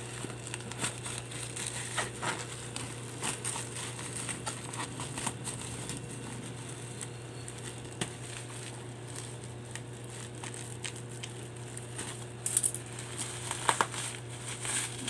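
Bubble wrap and a plastic shipping bag crinkling and crackling as hands press and pull at the wrapping of a parcel. The small crackles come irregularly, and there is a louder burst of crinkling near the end.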